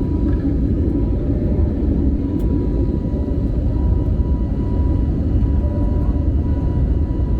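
Steady engine and airflow noise inside the cabin of an Airbus A320neo climbing after takeoff. It is deep and even, with a faint steady tone running through it.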